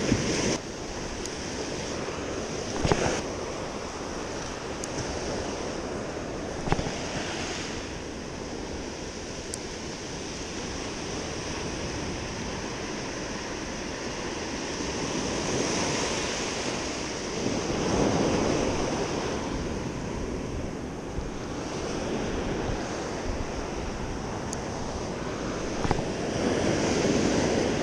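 Sea waves washing against a rocky shore, with wind buffeting the microphone. The surge swells and falls away several times, loudest over a couple of seconds past the middle and again near the end. Two short knocks come about three and seven seconds in.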